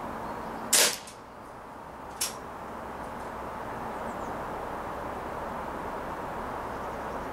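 A single shot from a CO2-powered Umarex Smith & Wesson M29 replica revolver firing a round-nose pellet, a sharp crack a little under a second in. About a second and a half later comes one fainter click.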